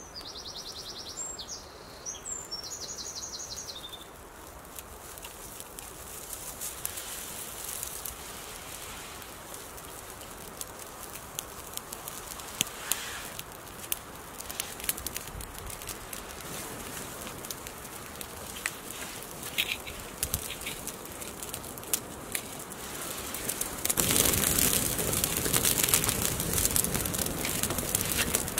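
A twig-and-tinder campfire catching: dry sticks crackling with sharp pops that come more often as it burns, then a louder rush of flame about four seconds before the end. A bird trills briefly at the start.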